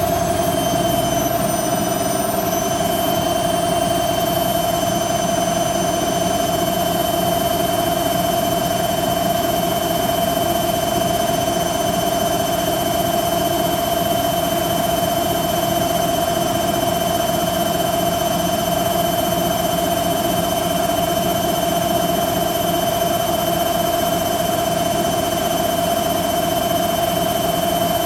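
Hoover Quattro washing machine on its final spin, the drum held at its top speed of about 1300 rpm: a steady, high motor whine over a rumble of the spinning drum, after the pitch has just finished climbing.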